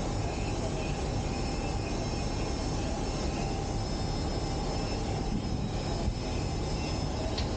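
Steady drone of industrial machinery: a low rumble with faint steady whines above it, and a short tick near the end.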